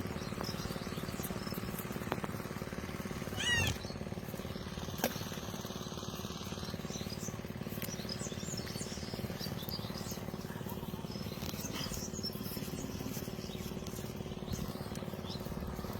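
Birds chirping over steady outdoor background noise, with a short burst of quick chirps about three and a half seconds in and a single sharp click a little later.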